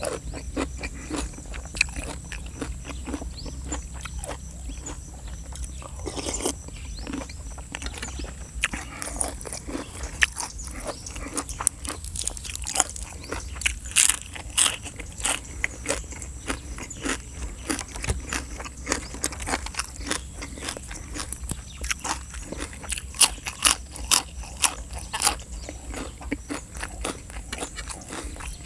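Close-miked chewing and crunching of chicken feet in a spicy fermented-fish-sauce salad, with many short, irregular crackles and bites.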